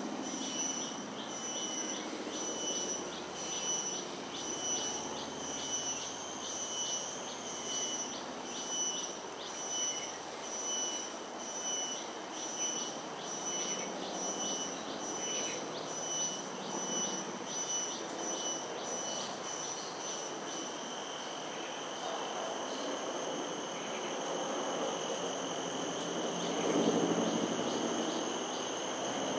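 An insect calling: a high, pulsing buzz that repeats a little more than once a second, then settles to a faint steady tone after about twenty seconds, over soft outdoor background noise that swells briefly near the end.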